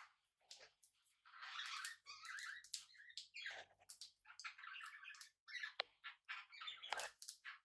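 Small pet parrots chirping and chattering softly in short scratchy bursts, with a few sharp clicks.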